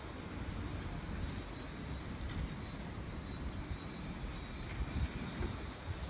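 Steady low rumble of outdoor traffic and railway ambience, with a faint high-pitched pulsing that starts about a second in and repeats roughly twice a second.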